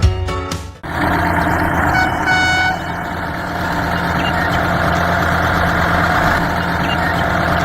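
Background music that cuts off about a second in. A vehicle engine then runs steadily, with two short horn toots about two seconds in.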